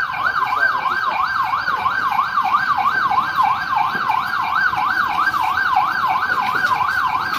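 Electronic emergency-vehicle siren on a fast yelp, loud, its pitch sweeping up and down nearly three times a second.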